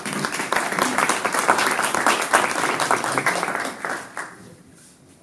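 Applause from a group of people: dense, continuous hand-clapping that dies away about four seconds in.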